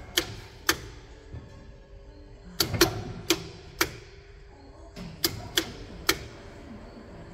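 Sharp clicks from the Martin T90 saw's control panel, about ten in irregular groups of two to four, as the fence position shown on its readout is stepped down.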